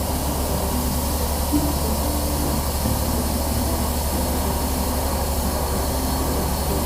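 Engine-driven machinery running steadily: a constant low hum under a rushing hiss.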